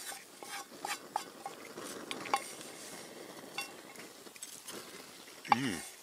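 Wooden spoon scraping and tapping in a black frying pan, in short irregular strokes. A brief vocal sound from the man near the end.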